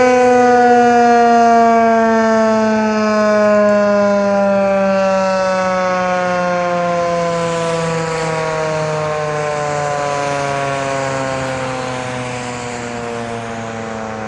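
Outdoor tornado warning siren winding down at the end of its monthly test: one loud, steady wail sliding slowly lower in pitch and gradually fading.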